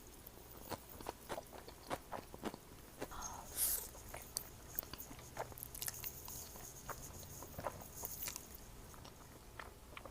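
Close-miked eating: a person biting and chewing, with many irregular crunchy clicks and wet mouth sounds, and one louder crunch about three and a half seconds in.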